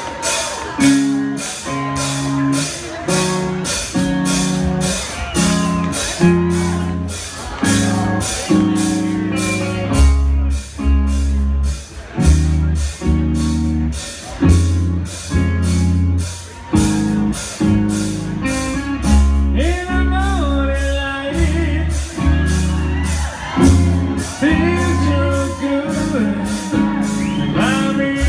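Hard rock band playing live: electric guitar chords over a steady beat, with heavy bass and drums coming in about ten seconds in.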